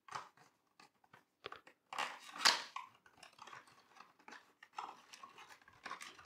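Small cardboard model-car box being opened by hand and a plastic blister tray slid out of it: a string of short scrapes, rustles and clicks, loudest about two and a half seconds in.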